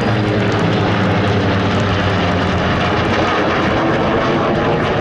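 Aircraft engines droning steadily from the Legacy Flight formation of F4U Corsair and SB2C Helldiver piston warbirds with F/A-18 Super Hornet jets, a low pitched hum over a wide rushing noise.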